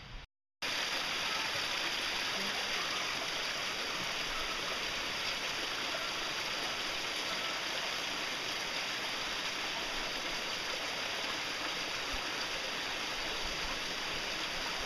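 Steady rushing of a stream, an even hiss of flowing water, starting after a brief break in the sound about half a second in.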